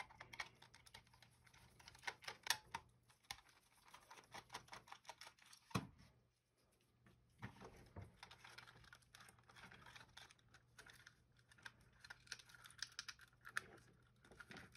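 Faint, irregular small clicks and ticks of a precision screwdriver backing screws out of the plastic base of a Microsoft IntelliMouse Optical, with the mouse shell being handled; one louder knock about six seconds in.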